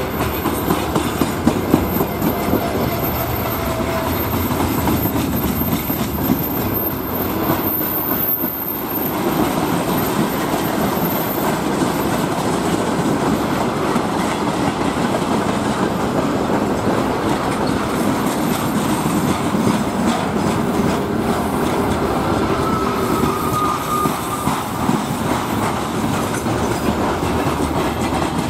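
Freight wagons of a mixed train (gondolas, tank cars, hopper cars) rolling past: a steady, loud rumble of steel wheels on rail with clickety-clack over the rail joints. A few faint, brief wheel squeals come about four seconds in and again around two-thirds of the way through.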